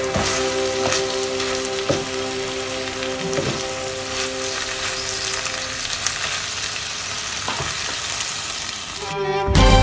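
Pasta and vegetables sizzling in a frying pan as they are tossed with a wooden spatula, with a few light knocks of the utensil against the pan. Music comes in loudly near the end.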